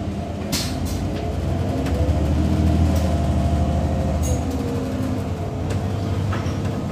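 Inside a moving city transit vehicle: the drive motor and rolling rumble build as it gathers speed, a tone gliding up and down in pitch over the low rumble, then run on steadily.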